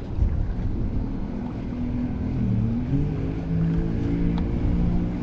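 A boat motor running with a steady hum; its pitch dips and rises about two and a half seconds in, then holds steady. Wind rumbles on the microphone throughout.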